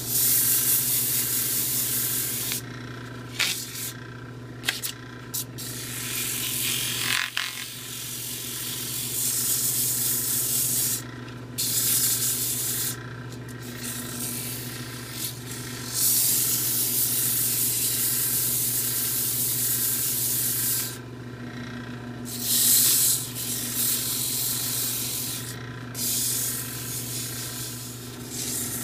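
Wood lathe motor running with a steady hum while sandpaper is held against the spinning wooden handle of a Yankee screwdriver. The sanding hiss stops and starts again several times as the paper is lifted off and pressed back on, taking off the worn old finish.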